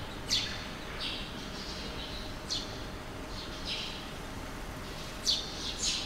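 Red-rumped swallows calling: about five short, sharp chirps that sweep down in pitch, scattered over soft high twittering.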